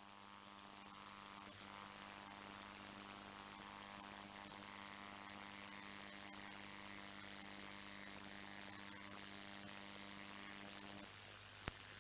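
Faint, steady electrical mains hum with light hiss from an idle PA sound system. The hum cuts off about eleven seconds in, and a single click follows shortly after.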